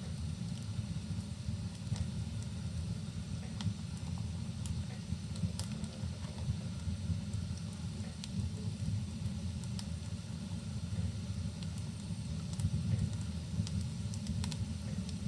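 Wood logs burning in a fireplace: a steady low rumble of the fire with scattered sharp crackles and snaps.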